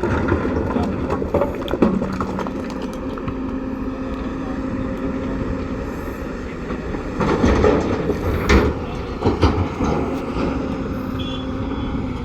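Heavy diesel earthmoving machinery running steadily, with a cluster of metallic knocks and clatter in the second half.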